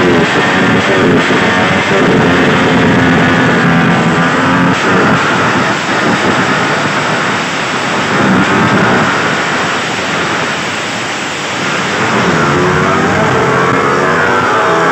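Drag-racing motorcycle engine being revved hard again and again, the pitch climbing and dropping, then pulling away down the strip with climbing revs near the end.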